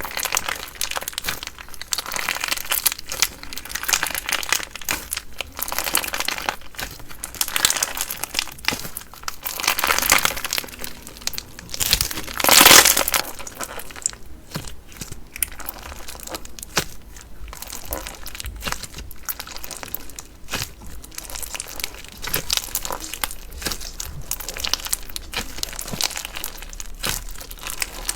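Slime being worked by hand, giving a dense run of small crackles and crinkling pops, with a louder, longer crackling stretch about twelve seconds in.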